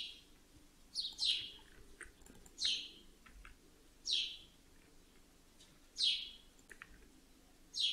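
A bird chirping over and over: a short, high chirp that falls in pitch, repeated about every one to two seconds.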